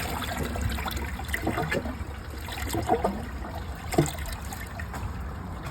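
Water trickling and running in a Niagara Stealth vacuum-assist toilet after a second flush, its bowl clogged by a dish towel, with a couple of small knocks about three and four seconds in.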